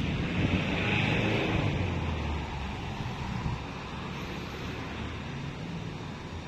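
Wind buffeting the microphone: an uneven low rumble with a hiss above it, easing off gradually.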